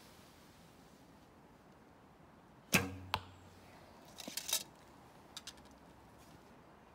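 A traditional bow (Kaiser Eltz) shot: a sharp string slap on release with a short low hum after it, and a second sharp knock under half a second later. Then arrows rattle against each other as one is drawn from the hip quiver, and two small clicks follow.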